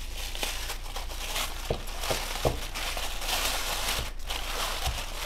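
Tissue paper rustling and crinkling as a package is unwrapped by hand and its tape peeled off, with a few soft knocks in between.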